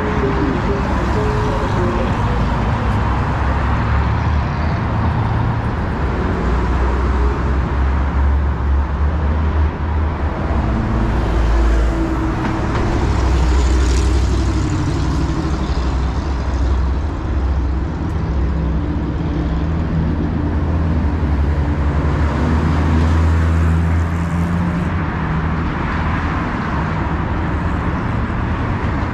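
Road traffic on a city avenue: cars and trucks driving past with a steady mix of engine hum and tyre noise. Louder passing vehicles swell about halfway through and again near the end.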